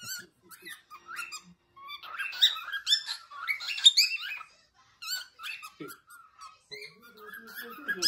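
Male cockatiel singing: a quick run of chirps and sweeping whistles, busiest and loudest in the middle.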